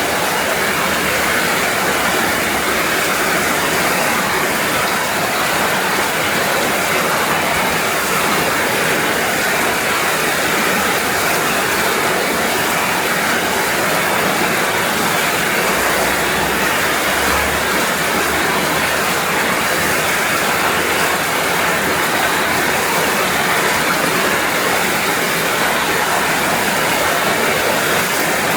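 Heavy rain falling steadily, a dense even hiss of drops without thunder.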